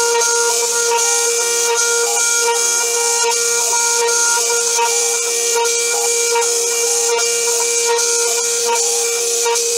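The spindle of a home-built CNC mill whines at one steady high pitch while a 4 mm end mill cuts the metal rim, with small irregular cutting chatter. Over it runs a loud steady hiss of coolant spraying from the nozzle.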